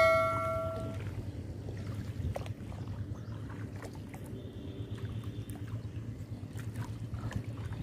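A bell-chime sound effect from a subscribe animation rings out and fades within the first second. After it, a steady low outdoor rumble with faint scattered splashes as a push net is drawn through shallow water.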